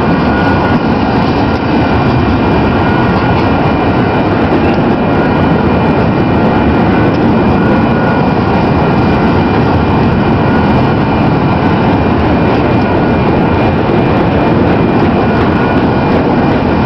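Double-stack container train of intermodal well cars passing close by: a loud, steady rumble and rattle of steel wheels on the rails, with a faint steady high whine above it.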